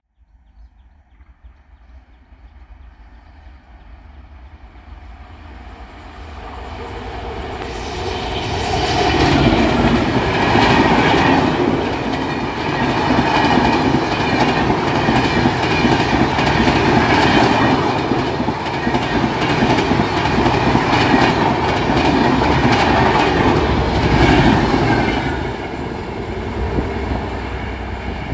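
Electric-locomotive-hauled passenger train approaching and passing close by. It builds up over the first several seconds, then a long run of coaches goes by with the wheels clattering in a steady rhythm over the rail joints, and it eases off near the end.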